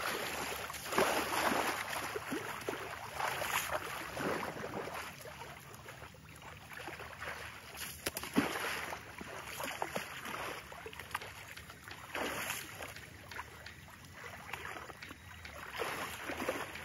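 Water splashing and sloshing in irregular bursts as a young elephant wades through a pool and swings its trunk in the water, with the biggest splashes about a second in and a sharp one around eight seconds in.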